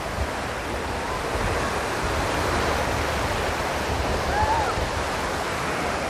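Small sea waves breaking and washing up on a sandy beach: a steady rush of surf.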